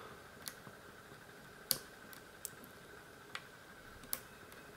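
Faint, sharp clicks of a steel hook pick working the pin stacks of a Euro profile cylinder lock held under tension, the core in a slight false set: about six scattered ticks, the loudest a little under two seconds in.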